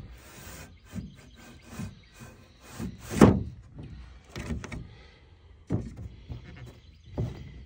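Irregular knocks and thumps, the loudest about three seconds in, as a greenhouse wall panel is slid into its groove in the frame.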